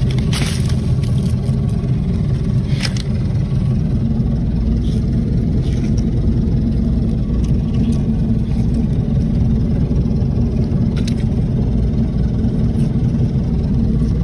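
An engine running steadily as a low, even hum, with a few light clicks over it.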